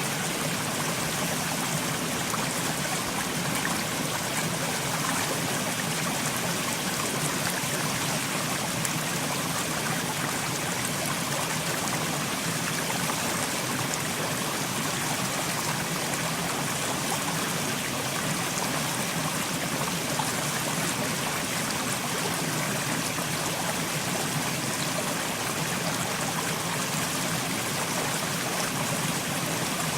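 Mountain stream flowing and trickling over rocks, a steady even rush of water.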